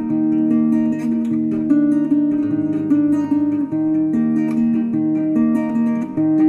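Instrumental background music: a quick melody of changing notes over a low bass line.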